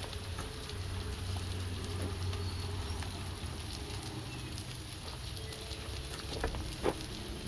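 Food frying on low heat with a steady soft sizzle and occasional light crackles.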